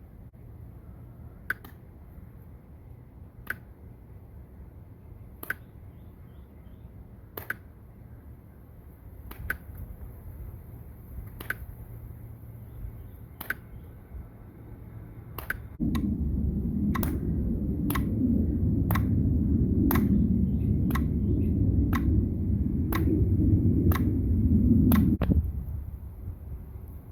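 Metronome clicking at 30 beats per minute, one sharp click every two seconds. About halfway through it speeds up to one click a second, and a loud low rumble comes in with it until shortly before the end.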